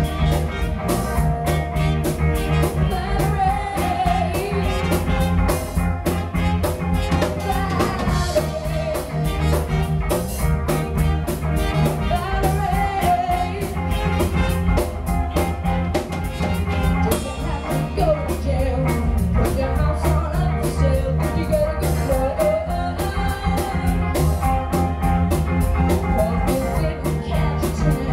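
Live band playing: a woman singing lead over electric guitars, bass, drums and trumpet, with a steady beat.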